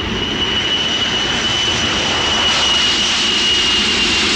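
Jet airliner's engines at takeoff power as it climbs out: a loud, steady roar with a high whine running through it, swelling a little in the first second or two.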